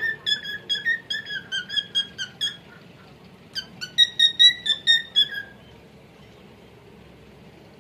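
Male cockatiel singing: two runs of short whistled notes, about four a second, the second run louder; the song stops a little past halfway.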